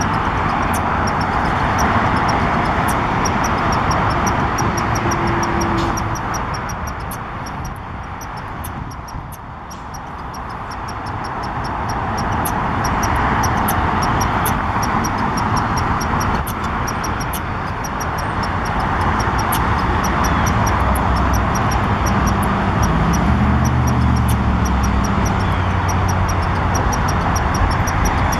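Red squirrel chattering: a long run of quick, sharp chirps, several a second, thinning out briefly about a third of the way through.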